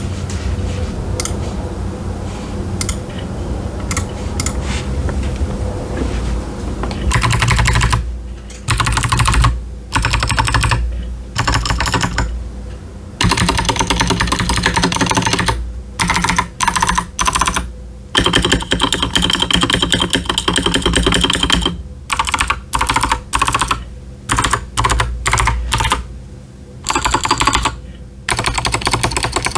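Typing on an Akko 5075s mechanical keyboard with TKC Blackberry clicky switches and ASA-profile doubleshot PBT keycaps, each keystroke a sharp click. For the first several seconds there is only a steady low noise with a few scattered clicks. Then continuous fast typing starts, in runs broken by short pauses.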